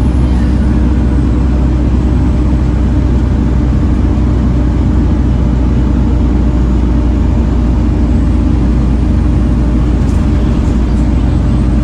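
Volvo B7TL bus's six-cylinder diesel engine running steadily, a constant low drone with no change in pitch or level.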